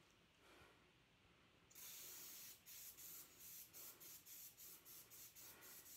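Aerosol cooking spray hissing from its can into an air fryer basket: one longer spray a little under two seconds in, then a quick run of short spurts, about three a second.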